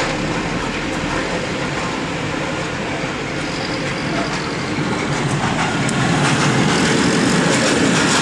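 Loaded open freight wagons (coal gondolas) rolling past on the rails with a steady rumble of wheels, growing louder after about five seconds with some clicking clatter.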